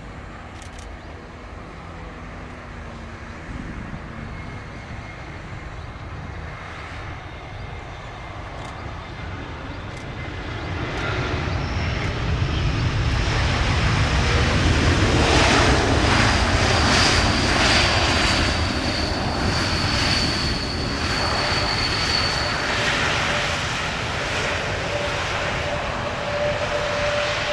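Airbus A321neo jet engines during a landing: a steady jet sound grows louder through touchdown into a loud rush on the rollout, with a high steady whine over it, then eases slightly near the end.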